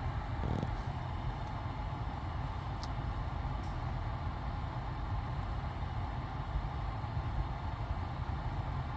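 Steady low rumble of a BMW X5 E53 running, with a faint short knock about half a second in.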